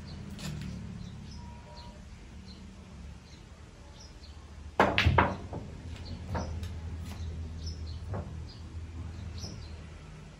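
A pool shot: the cue strikes the cue ball about five seconds in, with a quick run of sharp clacks as the billiard balls hit each other. Several lighter single clicks follow over the next few seconds as the balls knock together and against the cushions. Faint bird chirps are heard throughout.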